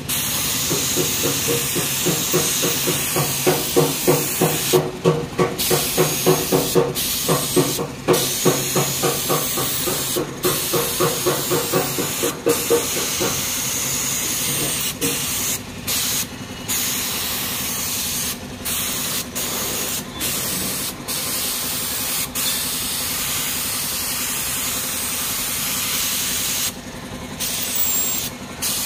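Compressed-air spray gun hissing steadily as it sprays paint onto a motorcycle alloy wheel, cut off briefly several times as the trigger is let go. A rhythmic pulsing hum, about three pulses a second, runs under the hiss for the first half and stops about halfway through.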